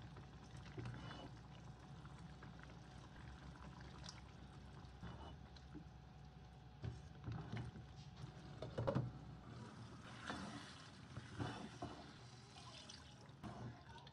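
A spatula stirring chicken through thick gravy in a nonstick pan: soft wet squelches and irregular scrapes and knocks against the pan, over a faint low hum that stops about two-thirds of the way through.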